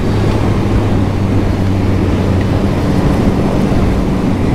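Yamaha MT-09 SP's three-cylinder engine pulling steadily at low revs while riding, heard on board with wind rush over the microphone. The bike is still being run in, so it is kept low in the rev range.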